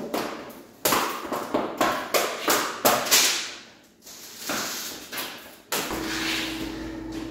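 Swisstrax plastic garage floor tiles being snapped together on the garage floor, a quick series of sharp clicks and knocks, then a few more after a short pause. A steady low hum comes in near the end.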